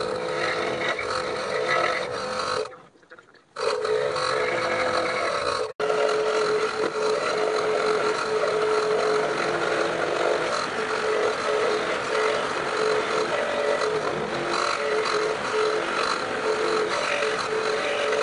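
Electric scroll saw running and cutting wood, a steady motor hum with the blade sawing. The sound drops away for about a second near the start and breaks off for an instant about six seconds in, then runs on steadily.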